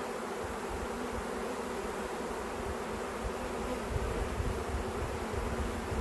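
Honey bee swarm buzzing: a steady hum of thousands of bees. A low rumble comes in about four seconds in.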